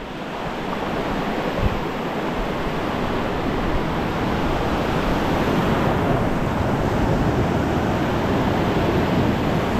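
Steady rush of ocean surf washing onto a sandy beach, growing a little louder over the first couple of seconds.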